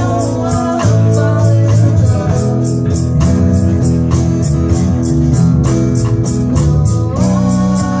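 Live band playing loudly: guitars, bass and drum kit, with a steady beat on the cymbals.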